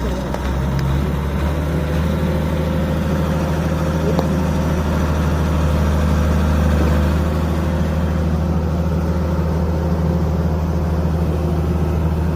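Excavator engine running steadily, a low, even drone.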